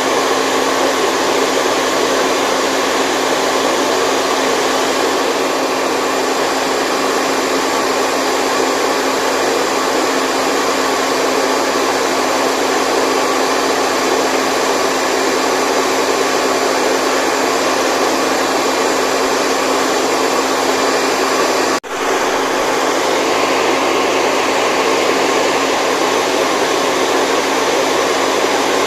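Steady white noise for baby sleep: an even, loud whooshing blow with a constant motor hum under it, like an appliance fan running. It drops out for an instant about three quarters of the way through, then carries on unchanged.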